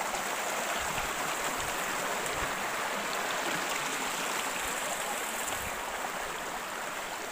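Shallow rocky stream rushing and burbling steadily over stones and small cascades.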